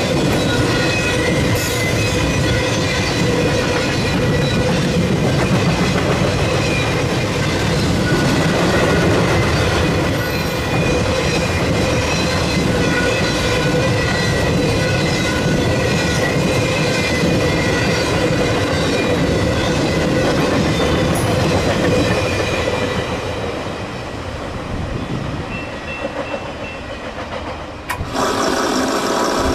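Double-stack intermodal freight cars rolling past on the near track: a steady rumble and clickety-clack of wheels on rail, with thin steady whining tones over it. The noise eases somewhat over the last few seconds, then changes abruptly to a different steady rumble near the end.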